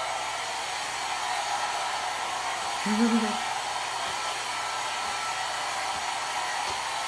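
Deogra mini travel hair dryer running, blowing steadily.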